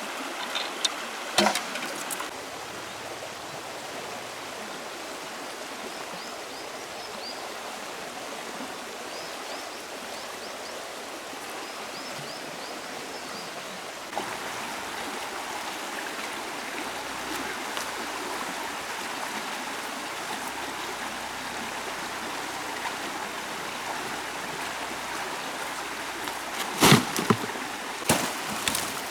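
Steady rush of a flowing stream, with a few sharp knocks about a second in and a cluster of louder knocks near the end, and faint high chirps in the middle.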